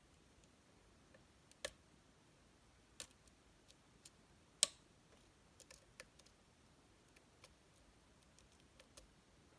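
Faint, irregular metal clicks of a hook pick working the pins of a Metal X6V pin-tumbler lock under heavy tension, with a few sharper clicks as pins set or spool pins drop deeper into a false set.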